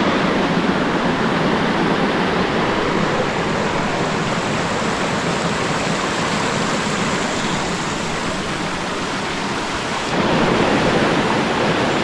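Rushing water of a small waterfall and rocky mountain stream: a loud, steady rush that grows a little louder about ten seconds in.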